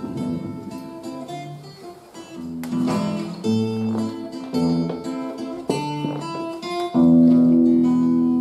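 Acoustic guitar playing a song's instrumental introduction in picked notes and chords, each ringing and fading. Near the end a chord is held, louder than the rest.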